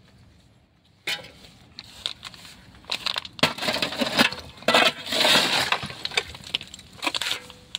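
Steel shovel scraping and scooping through broken concrete rubble and gravel: a run of gritty scrapes with clinks and crunches of stone, starting about a second in and busiest in the middle.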